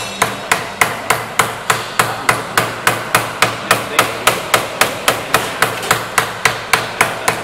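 Hand hammer beating sheet metal to shape it, a steady run of sharp blows at about three a second.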